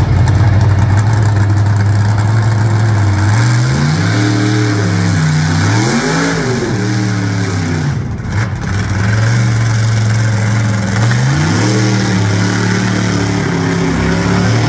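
Pulling truck's engine running hard at high revs. Its pitch climbs in steps, peaks about six seconds in and drops, then climbs again near the end, as the throttle is worked.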